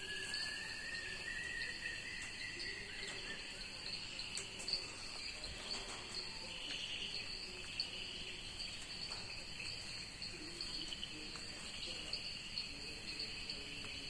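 Steady high-pitched chirring of an insect chorus, crickets or similar, with a second, slowly rising tone that fades out about three seconds in.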